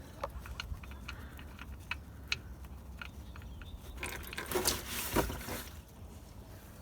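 Hot gear oil trickling from a Subaru Legacy 3.0R's front differential into a drain jar, with scattered small ticks and a louder noisy stretch about four to six seconds in.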